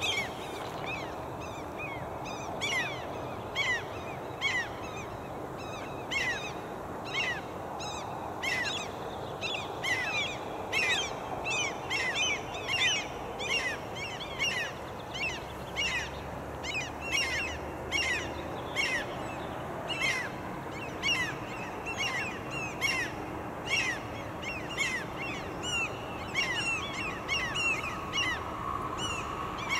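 A bird calling over and over, a short falling high note about one and a half times a second. Near the end, the running noise of an electric passenger train rises under it.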